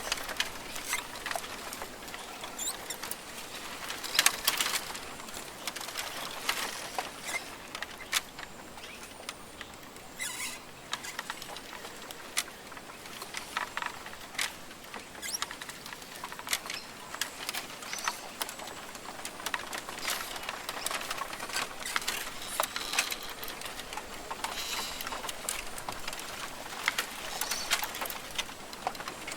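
Australian rainforest ambience: a steady high hiss broken by many short clicks and pattering, with a few faint bird calls.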